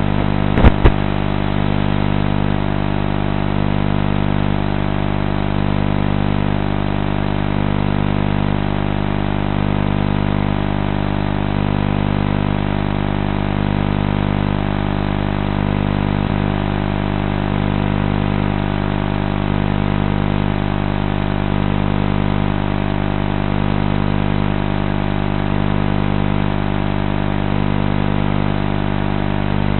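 A small engine idling steadily, its level swelling gently about every two seconds. Two sharp clicks just under a second in are the loudest sounds.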